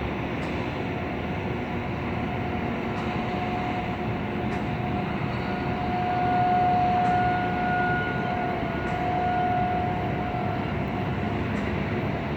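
Distant outdoor warning siren on its weekly test, holding one steady tone over a constant hum of city noise. The tone swells louder for a few seconds in the middle and sags slightly in pitch near the end as it begins to wind down.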